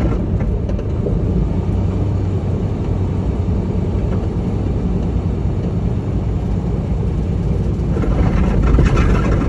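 Semi-truck running down the road: a steady low engine and road rumble, swelling louder near the end.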